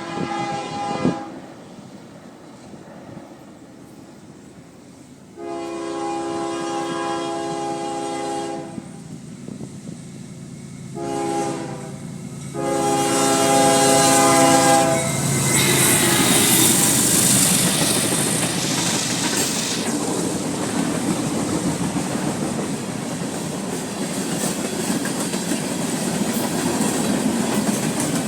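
CSX freight locomotive's multi-tone horn blowing long, long, short, long, the grade-crossing signal. The train then passes close by with a loud rush of wheels on rail and the rhythmic clickety-clack of railcars rolling over the joints.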